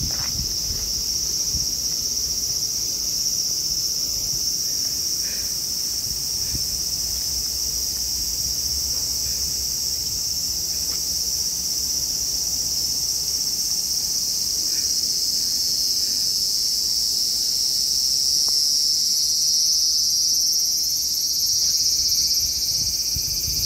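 Cicadas shrilling in a steady, loud chorus, one high band of sound with a fainter, higher one above it, growing a little louder toward the end.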